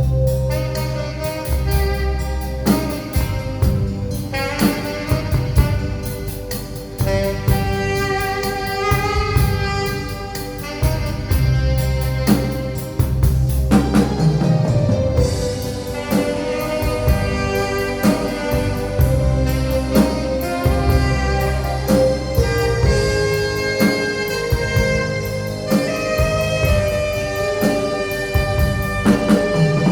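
Live band music: an alto saxophone playing the melody over keyboard and a drum kit keeping a steady beat.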